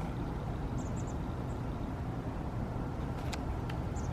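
Steady low background rumble, with a couple of faint clicks near the end.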